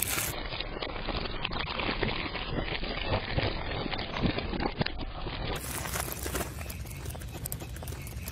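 Folding paper lanterns crinkling and crackling as a car tyre rolls over and crushes them: a dense run of sharp paper crackles, loudest about halfway through, over a low steady rumble.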